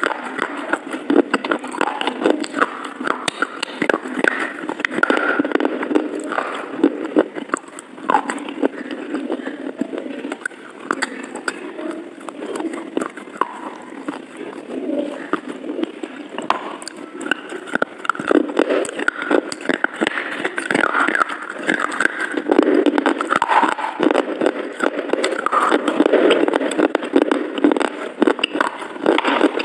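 A person chewing mouthfuls of soft pineapple-vanilla cream cake: steady mouth sounds with many small clicks and smacks.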